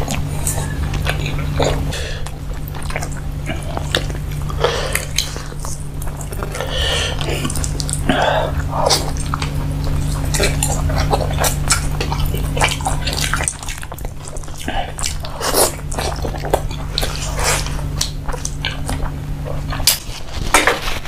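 Close-miked eating sounds: wet chewing, lip smacks and mouth clicks as rice and chicken are eaten by hand. A steady low hum runs underneath and stops near the end.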